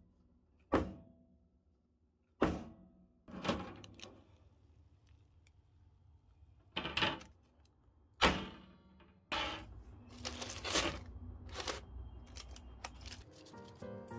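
Metal square cake pan of sponge batter knocked down on a table three times to drive out air bubbles, then two sharper bangs as the hot baked genoise in its pan is dropped to shock it and let the steam out, followed by a few seconds of rustling and small clicks as it is handled.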